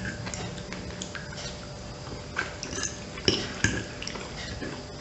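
Metal fork clinking and scraping against a ceramic plate while eating pasta in sauce, with two louder clinks a little past halfway.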